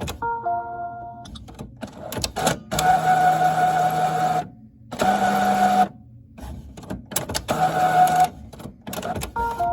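Printer's motors whirring in several stops and starts, each run one to two seconds long, with clicks and clunks in between; near the start and again near the end a short set of steady tones sounds. The owner calls these noises weird.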